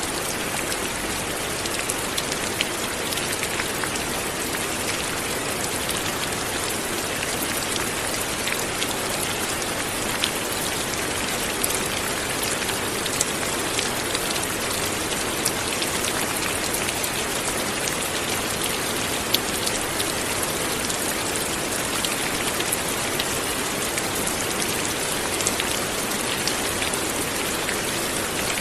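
Light rain falling steadily, an even hiss with many small scattered drop ticks.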